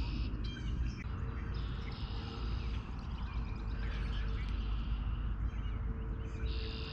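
Birds chirping, with a buzzy trill heard three times (at the start, about two seconds in, and near the end), over a steady low rumble.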